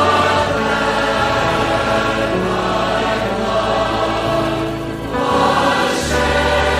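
Choir singing a hymn in long, held chords, its notes changing every second or two, during an altar call.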